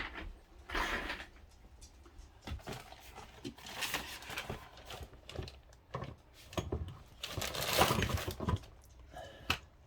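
Scattered knocks, clicks and rustling of objects being handled and moved about, with a longer scraping, rubbing noise about eight seconds in.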